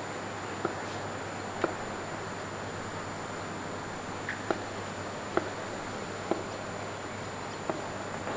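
Open-air ground ambience on a cricket field: a steady background hiss with a low hum and a thin high whine, broken by several faint sharp clicks about a second apart.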